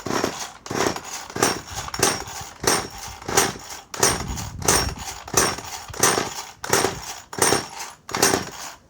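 Poulan Micro XXV two-stroke chainsaw being pull-started over and over, about a dozen quick rips of the recoil starter cord at an even rhythm, each turning the engine over against good compression. With a little fuel put on the carburettor, the engine fires just slightly without starting.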